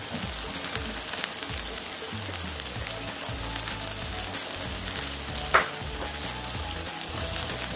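Thin sardine gravy with diced potato bubbling and sizzling in a steel wok as it comes to the boil, a steady crackling hiss. One sharp click stands out about two-thirds of the way in.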